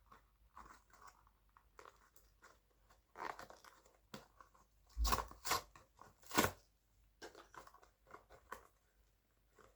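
Crinkling and tearing of a toy blind-bag wrapper being opened by hand: scattered crackles, louder about three seconds in and again in two bursts between five and seven seconds.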